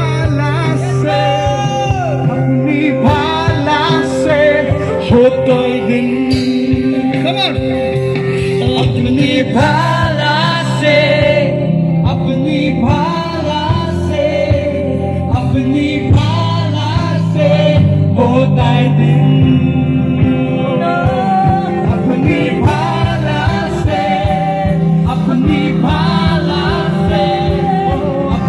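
Live worship band playing a gospel song through a PA: amplified singing over drums, electric guitar and keyboard, with a steady beat.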